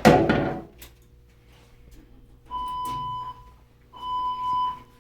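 A fire alarm pull station is pulled with a sharp clunk. About two and a half seconds later the building's fire alarm system starts sounding its alert tone: a steady beep a bit under a second long, repeating about every one and a half seconds, ahead of the voice evacuation message.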